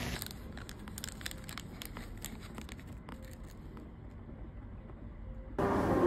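Pot of stew bubbling: irregular small pops and crackles over a low rumble, thinning out after about four seconds. It cuts off suddenly near the end.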